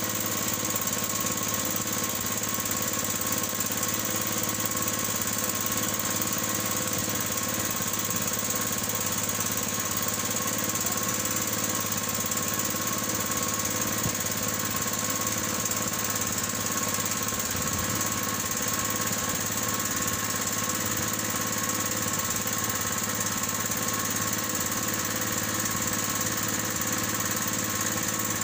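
A small engine aboard an outrigger fishing boat running steadily at an even speed.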